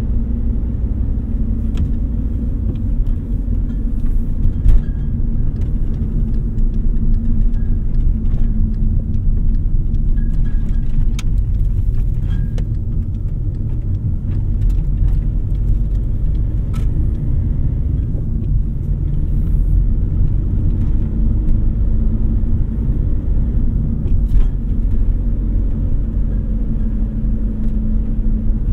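Steady low rumble of a car driving, heard from inside the cabin: engine and tyre noise on the road, with a few faint clicks and one brief thump about five seconds in.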